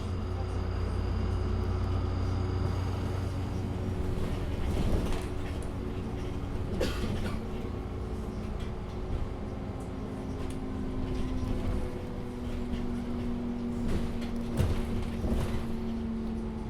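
Inside a MAN Lion's City NL293 city bus under way: the steady drone of its diesel engine and drivetrain with road noise. A few short knocks and rattles come from the body and fittings.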